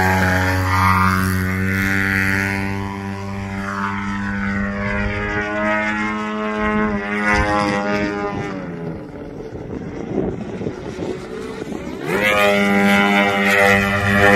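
A giant-scale RC Extra NG's GP178 gas engine and 31x12 carbon propeller in flight, with a steady, loud drone at first whose pitch shifts as the plane passes and climbs. It drops quieter for a few seconds past the middle, then winds up sharply in pitch and loudness near the end.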